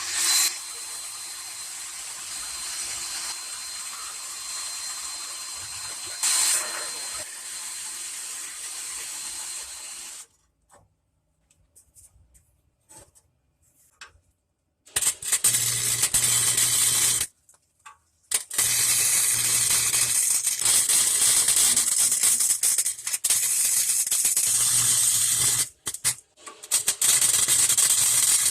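Flux-core wire welder arc crackling and sizzling in several long bursts with short pauses between them, as a broken exhaust flange is tacked to the resonator pipe. Before that, about ten seconds of a steady hiss, then a few seconds of near quiet.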